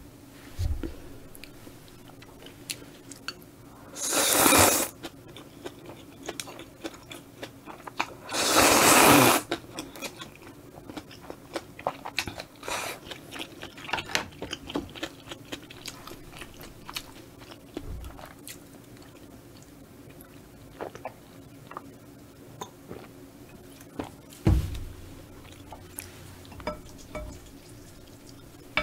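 Close-miked eating of spicy stir-fried squid and udon noodles: two loud slurps of noodles, about four and eight seconds in, then steady chewing with many small wet clicks and crunches, and a single knock about three-quarters of the way through.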